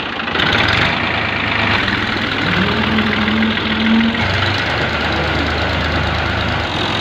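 Fiat 480 tractor's three-cylinder diesel engine running at low revs while the tractor is manoeuvred to hitch a trolley. The engine note rises about two and a half seconds in and falls back just after four seconds.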